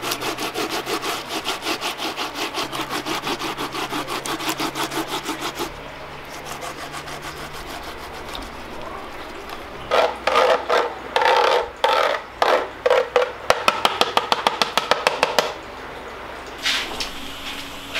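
Peeled cassava root grated by hand on a tall metal box grater: fast, rasping strokes about four a second. After a quieter stretch in the middle come louder, more uneven strokes, which stop a few seconds before the end.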